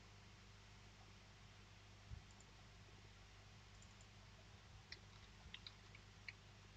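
Faint computer keyboard keystrokes: about five quick taps near the end, typing a short word into a field. A soft thump about two seconds in, over a low steady electrical hum.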